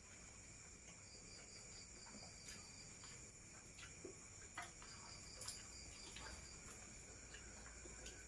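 Crickets chirping faintly in a steady high pulsing trill, with a few small clicks and knocks scattered through it.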